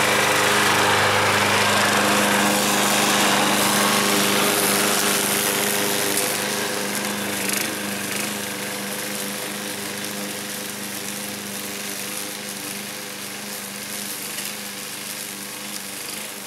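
Alpina BL 510 petrol walk-behind lawn mower running at a steady speed while cutting dry, tall grass. The engine note holds steady but grows fainter from about six seconds in as the mower moves away.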